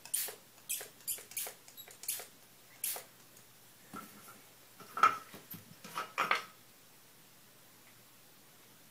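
Pump spray bottle of Ranger Adirondack Color Wash ink spritzed in about eight short squirts over the first three seconds. Then a few sharper clicks and knocks, the loudest about five seconds in.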